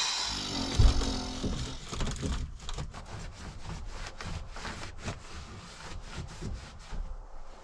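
Debris being handled and cleared out: irregular rustling, scraping and knocks, with a heavy thump about a second in.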